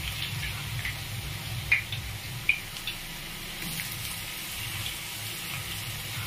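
Thin potato slices deep-frying in hot oil: a steady bubbling sizzle with scattered small crackles and a couple of sharper pops.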